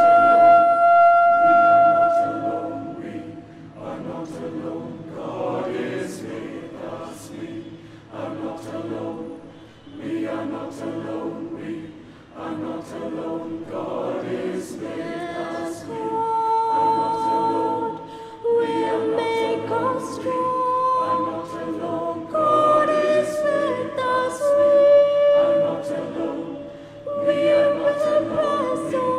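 Mixed church choir singing a cappella in harmony, opening on one long held note and then moving through changing chords.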